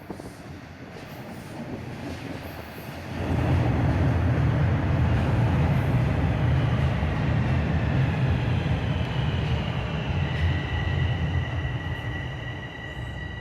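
TTC train running on rails: a heavy rumble rises sharply about three seconds in and stays loud. About ten seconds in, a high, steady metallic wheel squeal joins it and grows.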